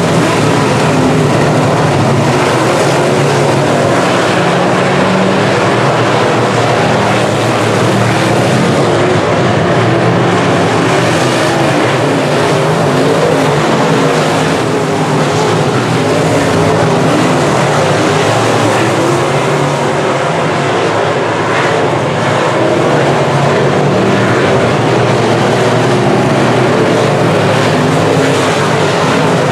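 Dirt semi-late model race cars' V8 engines running at racing speed around the track: a loud, steady drone whose engine pitch rises and falls as the cars pass.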